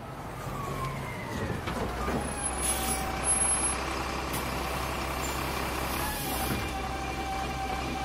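Inside a bus: the engine runs with a steady low drone and a noisy cabin rumble. A short hiss of air comes about three seconds in, and a steady whine sets in near the end.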